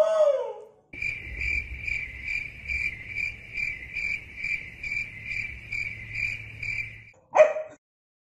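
Cricket-chirp sound effect: a shrill, steady chirping about two and a half times a second that cuts in and out abruptly over dead silence. A brief sigh-like voice fades out in the first second, and a short, sharp vocal sound comes near the end.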